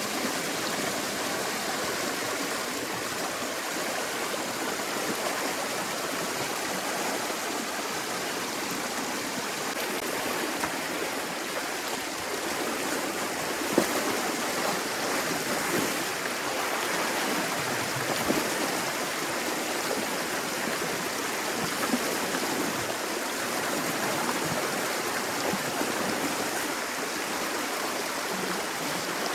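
Water rushing steadily through a breached beaver dam down a drainage canal, with a few brief splashes or knocks.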